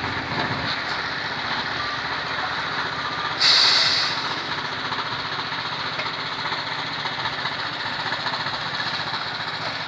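Steady street traffic and truck-engine noise, with a short loud hiss about three and a half seconds in.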